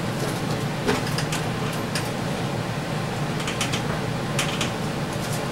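Scattered light clicks and clacks of tools and parts as hands work in a pickup's engine bay, the sharpest about a second in, over a steady low hum.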